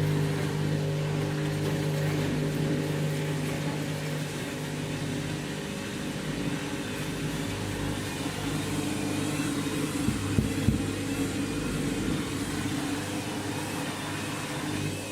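Candy washing machine starting its final spin with a load of bedding, the drum motor running with a steady hum whose pitch shifts upward about halfway through. Two sharp knocks come a little after ten seconds in, typical of an out-of-balance bedding load.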